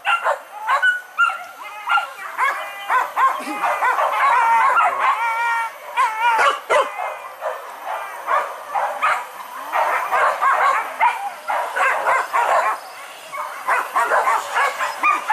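A pack of hunting dogs yelping and barking without pause as they give chase, their calls overlapping, with drawn-out wavering howls about four to six seconds in.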